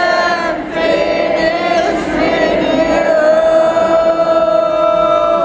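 Large audience singing along in unison, wordless vowels with one long held note over the second half.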